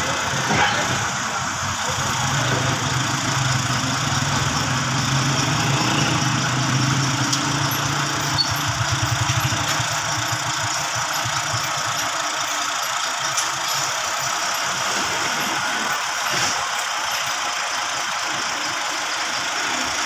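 Vehicle engines running in street traffic: a steady engine drone for the first ten seconds or so, then settling to a weaker, rougher engine noise.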